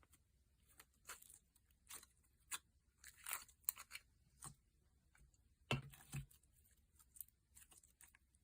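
Thick slime being squeezed and stretched by hand, giving soft, scattered crackles and tearing sounds, with a louder cluster about three seconds in and a low squelch around six seconds.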